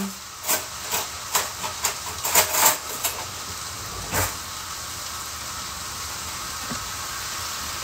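Food sizzling in a pan on the stove: a steady frying hiss with scattered pops and crackles in the first few seconds and one more about four seconds in.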